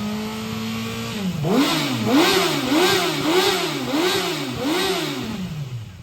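2006 Yamaha R6 inline-four engine running through its stock muffler box and a slip-on silencer. It holds steady revs for about a second, then is blipped up and down repeatedly, nearly twice a second, before dropping back near the end.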